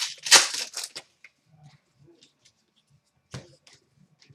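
Trading cards being handled: a stack of cards slides and flicks as one card is moved behind another. The loudest rustle is in the first second, then a few faint ticks, and a short rustle near the end.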